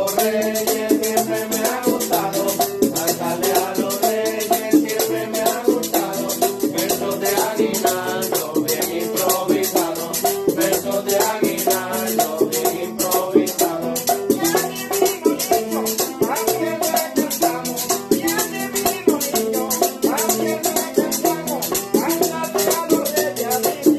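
Live folk music: a small accordion playing a melody over a strummed long-necked stringed instrument, with a fast, steady rattling shaker rhythm.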